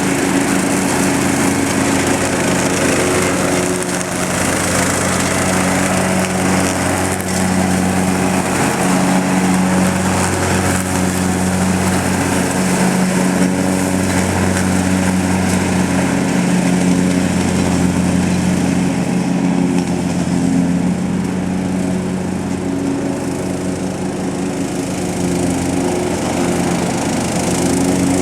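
Walk-behind lawn mower's small engine running steadily with an all-weather blade, chute off, mulching leaves; the engine note dips and recovers a little under the load.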